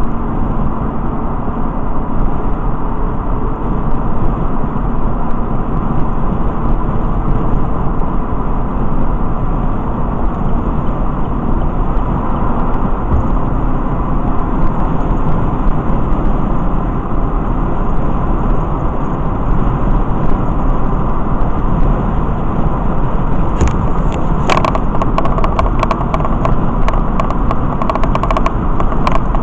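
Steady road and engine noise inside a vehicle cruising at highway speed, a dense low rumble with tyre hiss, picked up by a dashcam behind the windshield. A run of small clicks comes in near the end.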